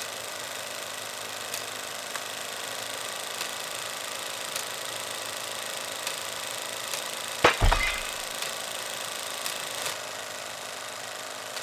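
Steady hiss dotted with faint clicks, and one loud sharp crack with a deep thump about seven and a half seconds in.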